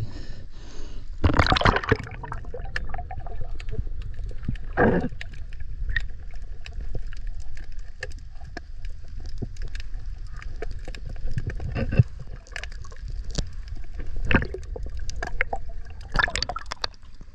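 Water sloshing and gurgling around a swimmer's action camera at and below the surface, muffled underwater sound with a low rumble and many small clicks. Several louder bursts of splashing or bubbling come about a second and a half in, at about five seconds, twice near twelve to fourteen seconds, and near the end.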